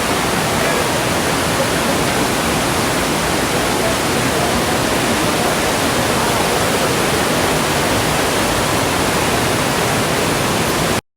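Rushing water of a creek waterfall, a loud steady roar with no change, cutting off suddenly at the very end.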